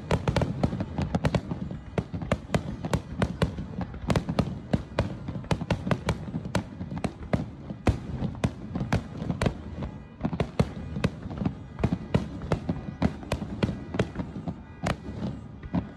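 Aerial fireworks bursting in a rapid, continuous barrage of bangs and crackles over a low rumble, several shots a second.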